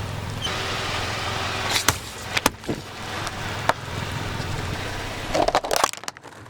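A car running slowly with a steady low engine hum, over which come several sharp cracks and snaps, a cluster of them near the end, before the sound cuts off abruptly.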